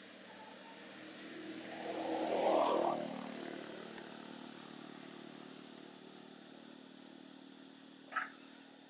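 A motor vehicle passing, loudest about two and a half seconds in, followed by a steady engine hum. A short click comes near the end.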